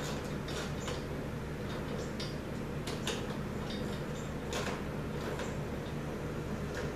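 Quarter-inch drive ratchet clicking in irregular strokes as it drives screws into unthreaded holes in a garage door opener rail, the screws cutting their own threads. A steady low hum runs underneath.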